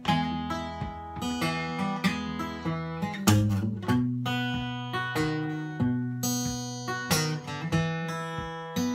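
Steel-string acoustic guitar fingerpicked: plucked treble notes ringing over steady bass notes that change about every half second.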